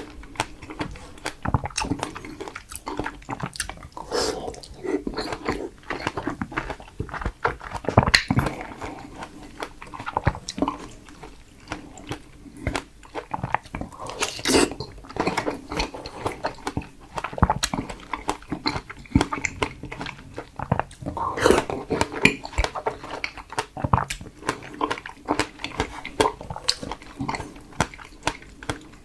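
Chewing and biting strawberries up close to the microphone: irregular mouth clicks and smacks throughout.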